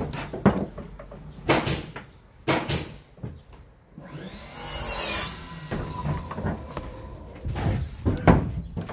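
Scattered knocks and clatter of a tool and hands working at a scooter's handlebar, mirror and windscreen fittings, with a brief hiss about halfway through.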